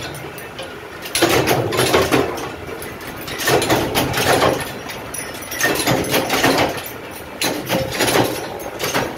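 Mechanical power presses stamping small steel parts: spells of rapid metallic clanking about every two seconds, each lasting about a second, over the steady hum of the flywheel drives.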